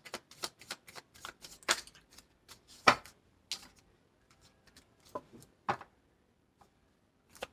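A tarot deck shuffled by hand: quick papery clicks and slaps of cards against each other, thick at first and thinning out over the second half, with one louder slap about three seconds in.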